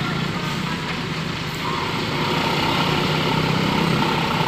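A road vehicle's engine running steadily, getting louder about two seconds in as it comes closer.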